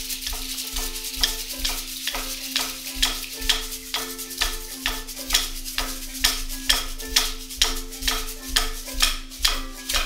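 Credits music: a steady percussive beat, about two strokes a second, over held sustained notes.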